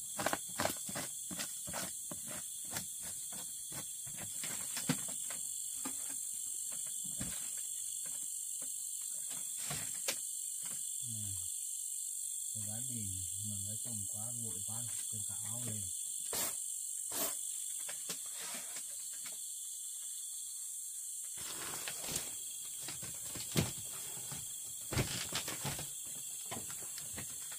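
Crickets chirring steadily, with scattered clicks and knocks of things being handled. A low wavering hum sounds for a few seconds midway.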